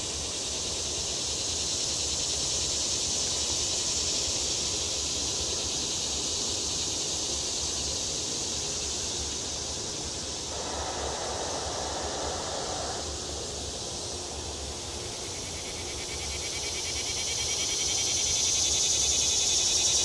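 A chorus of cicadas singing: a steady, high-pitched buzz that swells and grows louder in the last few seconds.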